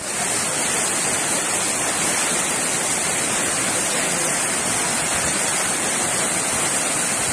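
Heavy rain together with water pouring in sheets off the edges of an overhead concrete bridge, a steady rushing hiss with no breaks.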